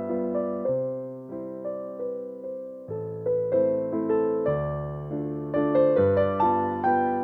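Background piano music: a gentle melody of struck notes that ring and fade, over held bass notes that change every second or so.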